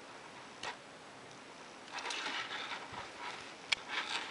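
A Casio Databank DB-150 digital watch with a metal bracelet being handled: small clicks and a short stretch of rubbing and rustling as fingers move over the case and bracelet, with a sharper click about three and a half seconds in.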